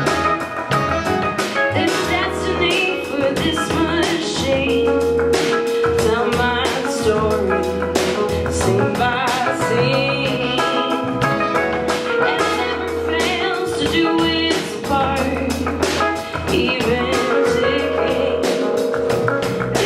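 Live band playing a song on drum kit, electric guitars, bass, keyboard and saxophone, with a woman singing over it and several long held notes.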